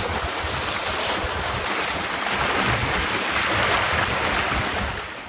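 Wind buffeting the microphone and water rushing along a small sailing dinghy's hull in a strong breeze. The sound fades away near the end.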